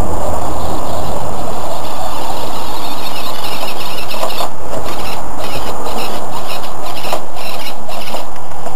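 Axial AX10 rock crawler's electric motor and gearbox whining in repeated short bursts as it climbs over rocks, heard over a constant loud rushing noise. The bursts come in the second half.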